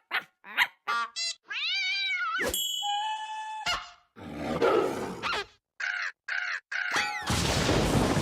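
A rapid string of cartoon sound effects: quick pitched chirps, then a whistle that rises and falls, a held tone, several rough noisy bursts, and a loud hissing rush over the last second or so.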